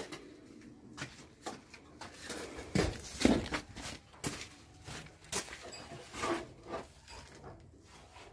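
Irregular knocks and clicks, about one or two a second, with the loudest near the middle, in a small room.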